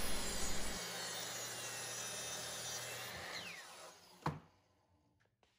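Miter saw finishing a cut through three stacked plywood pieces, then the blade spinning down with a falling whine. A single knock comes about four seconds in.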